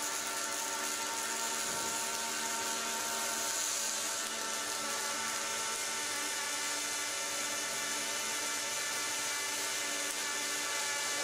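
Robotic arc welding: the welding arc gives a steady buzzing hum with a hiss on top, unbroken throughout.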